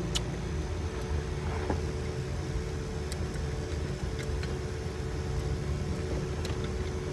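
Car interior while driving slowly: a steady low rumble of engine and tyres with a faint steady hum, and a few faint ticks.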